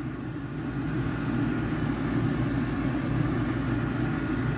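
Steady low noise that starts and cuts off abruptly.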